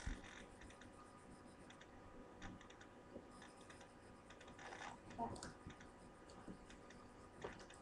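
Faint, scattered light clicks and taps of fingers pressing clear tape onto the inside of a plastic slotted basket.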